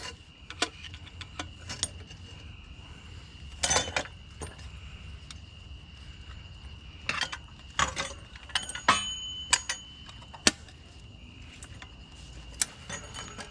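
Metal parts and hand tools clinking and knocking now and then as a cast-metal piece is taken apart by hand, with a short cluster of clatter about four seconds in and several sharp clinks later on.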